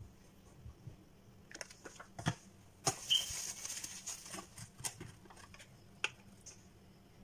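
Light clicks, taps and plastic rustling from handling a small plastic tub of candied cherries, with a short louder crinkle about three seconds in.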